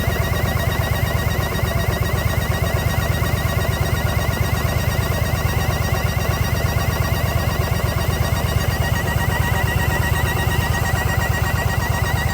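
Yamaha XV950 Bolt's air-cooled V-twin idling steadily, with a fast even pulse and a high wavering whine over it throughout. The odd noise comes from a leaking intake manifold.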